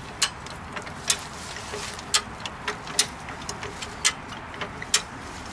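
High-lift jack being pumped by its long handle to lift the front of a Jeep: sharp metal clicks from the jack's climbing mechanism on the steel bar about once a second, with fainter clicks between.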